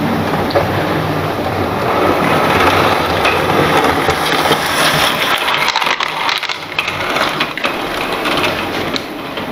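Model train running on the layout track, its wheels clattering and clicking over the rails, dipping briefly about six seconds in.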